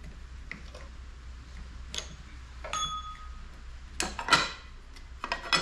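Metal clinks and clatter from a drum brake backing plate being worked off a motorcycle's front wheel hub: a few light clicks, one short metallic ring near the middle, and louder rattling clatters about four seconds in and again near the end.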